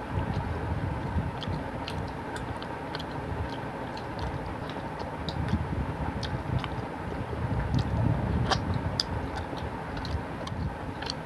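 Scattered small clicks and ticks as fingers pick through a piece of curry-soaked fish on a steel plate, pulling out bones, over a low steady rumble.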